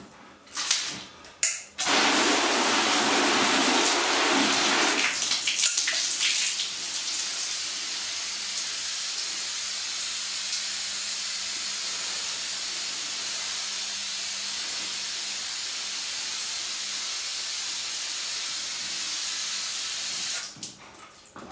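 Water from a hose spraying onto a car bonnet: a steady hiss of spray that starts abruptly about two seconds in. It is heavier and splashier for the first few seconds, then runs evenly and cuts off shortly before the end. The panel is being rinsed to test how water sheets and beads off the freshly applied spray sealant.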